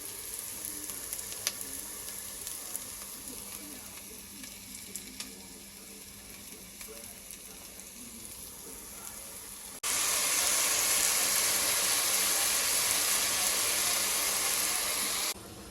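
Food frying in a pan, sizzling steadily, with a few light clinks of a utensil. About ten seconds in there is a jump to a much louder sizzle, which cuts off suddenly near the end.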